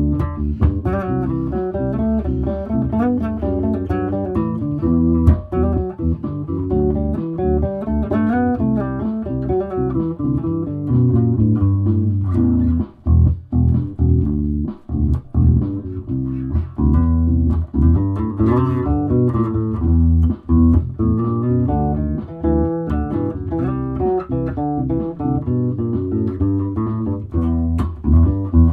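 Aria Pro II Thor Sound electric bass played along to a backing track with drums, the bass notes changing steadily over a regular beat.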